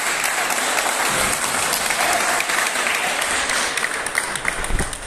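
A group of people clapping steadily, the applause thinning into scattered claps near the end.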